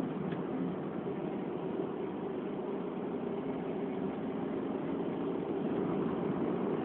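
Steady car engine and road noise heard from inside the cabin of a car driving on a race track, growing a little louder near the end.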